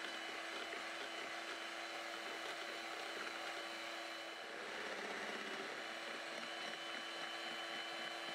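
Electric hand mixer running steadily, its beaters whipping a runny batter in a glass bowl, with a steady motor whine.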